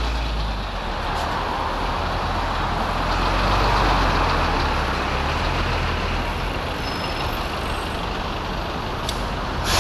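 Road traffic: a steady wash of motor-vehicle noise with a deep rumble, swelling a little a few seconds in.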